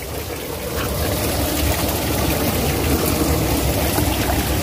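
Stream water rushing and splashing past rocks close to the microphone: a steady rush with a deep rumble that grows louder about a second in.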